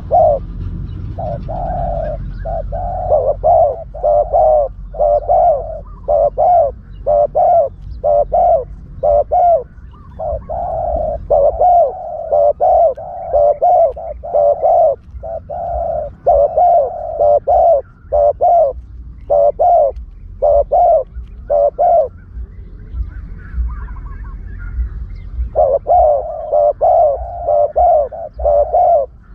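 Spotted dove cooing in long runs of short, quick notes, a decoy call of the kind used to lure spotted doves for trapping. The cooing stops for a few seconds past the middle, then resumes.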